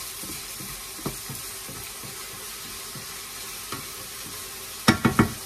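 Minced meat sizzling in a frying pan while a wooden spatula stirs and scrapes through it, with a quick run of sharp knocks near the end.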